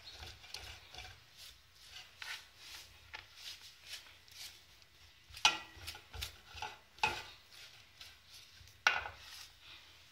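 Egg beater stirring a dry flour mixture in a metal bowl: irregular scraping and rubbing strokes, with three sharp clinks against the bowl about five and a half, seven and nine seconds in.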